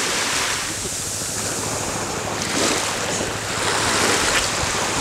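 Shallow sea water washing and splashing around people moving through it, with wind on the microphone.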